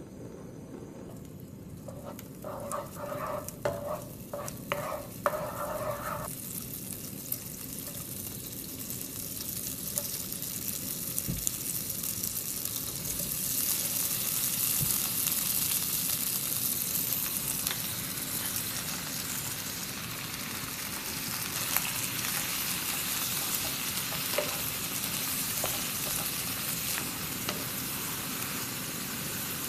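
Food frying in a pan with mayonnaise as the fat: a steady sizzle from ham and cherry tomatoes, later lettuce being stir-fried with a wooden spatula. A few knocks come in the first few seconds, then the sizzle builds and stays loud, with the odd click of the spatula against the pan.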